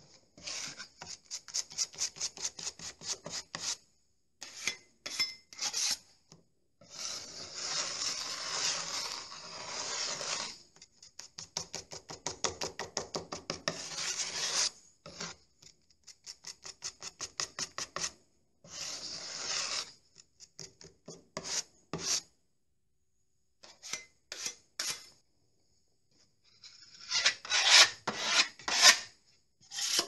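A metal filling knife scraping and working filler, mixed with some emulsion paint, on a flat mixing board. It comes in runs of quick back-and-forth strokes, about four a second, with some longer stretches of steady scraping and short pauses, and the strokes are loudest near the end.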